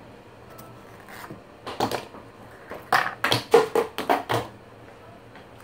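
Ice cubes being taken from a silicone ice-cube tray and dropped into a plastic blender cup of strawberries and milk: a couple of clacks about two seconds in, then a quick run of knocks and clatters between three and four and a half seconds.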